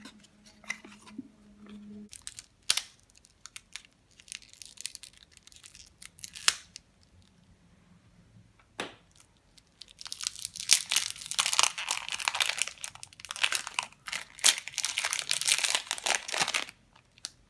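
Packaging of a puzzle cube being opened by hand: scattered clicks and rustles, then from about ten seconds in several seconds of continuous crinkling and tearing.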